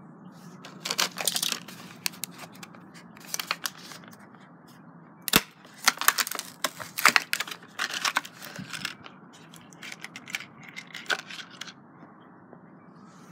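A Hot Wheels blister pack being opened by hand: the clear plastic bubble crackles and tears away from its cardboard backing card in a run of short crinkles and rips, with one sharp snap about five seconds in.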